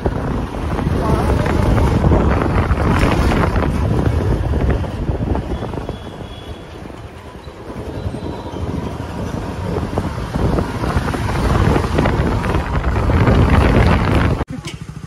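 Wind buffeting the microphone over the engine and road noise of a motorbike ride, swelling and easing with speed. It cuts off suddenly near the end.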